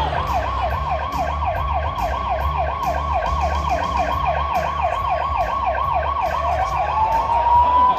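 Siren sound effect over the arena PA, warbling fast at about four sweeps a second, then turning into one long wail near the end, over a steady beat.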